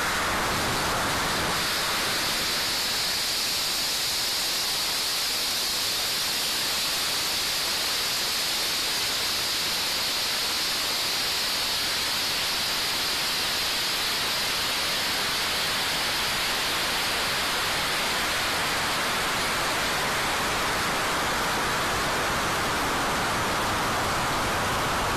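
High-power amateur rocket in flight, heard from its on-board camera: a loud, steady rushing noise of the CTI K300 motor's exhaust and of air streaming past the fiberglass and carbon-fibre airframe as it climbs toward Mach 1.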